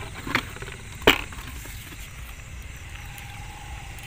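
Two sharp knocks from gear being handled, about three-quarters of a second apart, the second louder, over a low steady rumble. A faint, thin steady tone starts about three seconds in.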